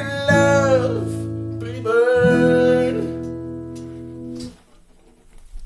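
Acoustic guitar strummed under a singing voice that holds two long notes; the music stops about four and a half seconds in, ending the song.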